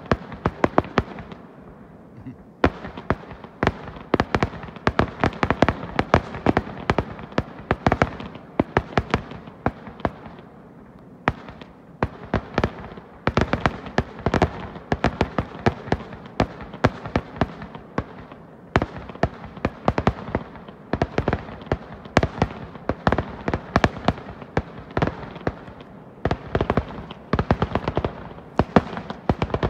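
Fireworks display going off: many sharp bangs and crackles in rapid clusters, with a few short lulls.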